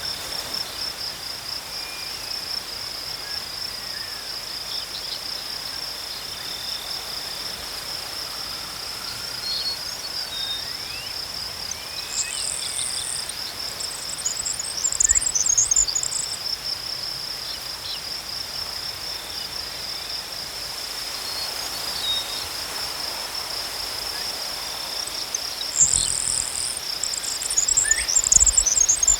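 Crickets chirping in a steady, rapid pulsing trill. A second, higher-pitched scratchy chirping comes in twice, about halfway through and near the end.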